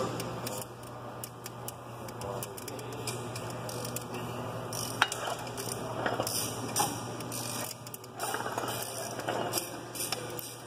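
Wrench cranking the square forcing screw of a bearing puller, a run of short clicking, rasping bursts with a few sharper ticks, as the puller draws the input shaft bearing out of an Eaton Fuller transmission. A steady low hum runs underneath.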